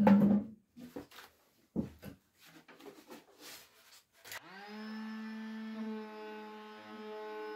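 Knocks and clicks of handling, loudest at the very start, then about four seconds in a horsehair string on a bass tagelharpa is bowed: a single long note that slides up in pitch as it starts and then holds steady.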